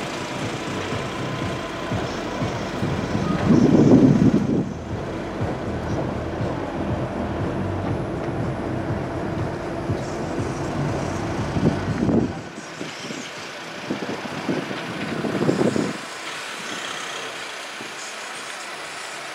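Outdoor ambience of a steady engine rumble, such as traffic or an idling vehicle. It swells loudest about four seconds in and drops away abruptly twice in the second half.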